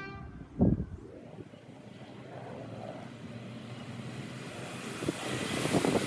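A train horn's blast cuts off right at the start. About half a second in comes a loud thump, then the rumble of an approaching train builds steadily, with a rising hiss near the end.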